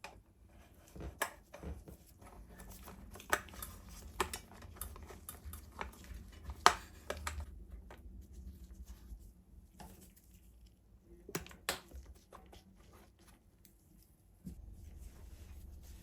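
Scattered light clicks and taps of small metal parts being handled, with the loudest knock about six and a half seconds in and a pair of clicks later on.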